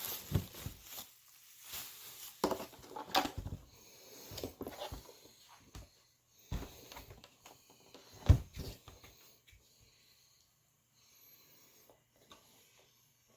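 Irregular handling noises of car parts and their packaging being unpacked: light knocks, taps and rustling, with the sharpest knock about eight seconds in, then it goes quiet near the end.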